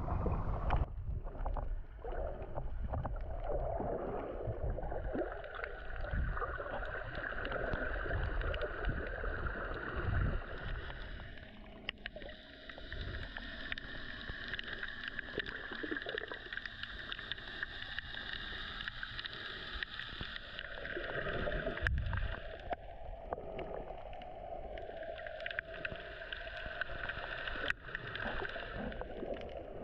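Muffled underwater sound picked up by a camera held below the surface in shallow water: low churning and gurgling of water with a steady droning hum and a few small clicks.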